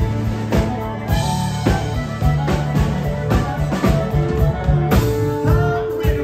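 Live country-rock band playing an instrumental passage: drum kit keeping a steady beat of about two hits a second under electric and acoustic guitars and fiddle. A long held note comes in about five seconds in.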